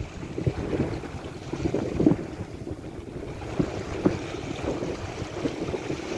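Strong wind buffeting the microphone in irregular gusts, the loudest about two and four seconds in, over small waves lapping on the shore.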